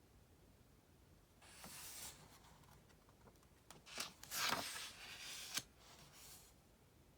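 Paper rustling with a few light clicks, typical of a book's page being turned. The loudest rustle comes a little past the middle and ends in a sharp click, followed by a faint rustle.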